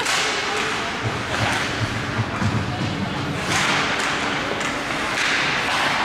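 Ice hockey play on a rink: skates scraping the ice in swells, with sharp stick-and-puck hits and a run of low thuds about a second in.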